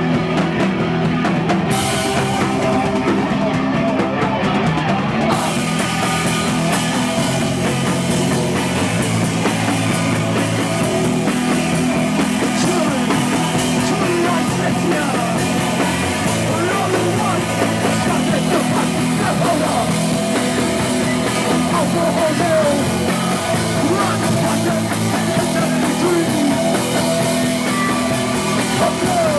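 Live punk-rock band playing loud, with drum kit and amplified instruments; the sound turns brighter in the top end about five seconds in.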